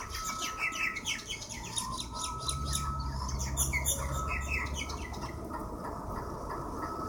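A flock of birds squawking and chattering in a fight, a dense run of short, harsh, falling calls that thins out after about four seconds. A low steady hum runs under the middle of it.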